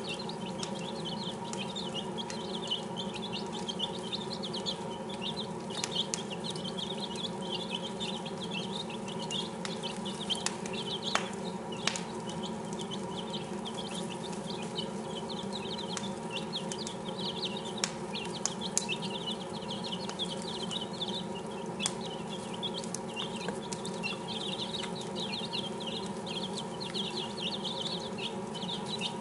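A brood of six-day-old chicks peeping in a constant, overlapping chorus while they feed, with a few sharp clicks and a steady low hum underneath.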